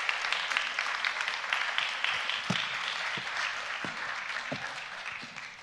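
Audience applauding, dense clapping that thins and fades out near the end, with a few soft low thumps.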